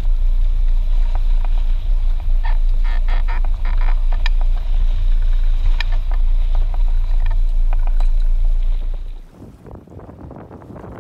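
Boat engine running with a steady low drone while trolling, with a cluster of sharp clicks over it from about two to six seconds in. About nine seconds in it gives way to quieter wind noise on the microphone.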